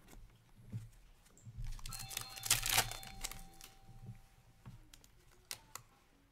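A stack of hockey trading cards being shuffled and slid against one another in the hands, a dry rustling with scattered light clicks, densest and loudest about two to three seconds in.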